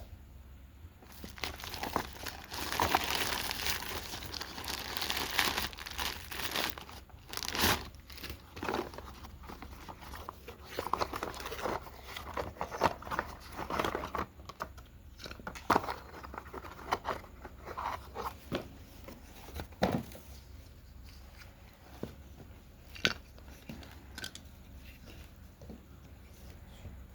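Packaging being crinkled and torn open by hand during a toy unboxing. It is densest in the first several seconds, then gives way to scattered sharp crinkles, clicks and taps.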